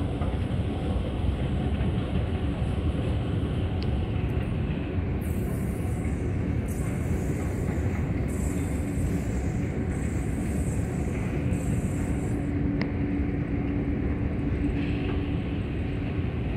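Escalator running, a steady low rumble from its moving steps and drive, heard while riding it upward. A faint steady hum joins about halfway through and fades out near the end.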